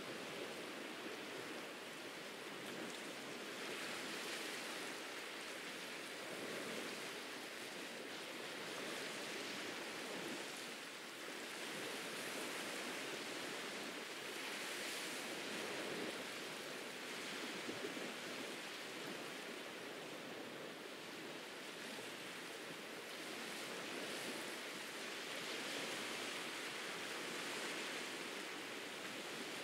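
Ocean surf washing onto a beach: a steady hiss of breaking water that swells and eases every several seconds.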